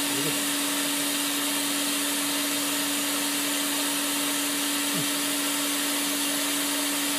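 Laser cleaning machine running steadily: an even hum with a constant low tone over a wide hiss, without changing.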